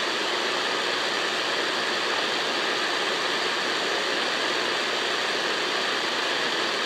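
Steady static hiss from a CB radio's speaker, squelch open, with no station transmitting on the channel.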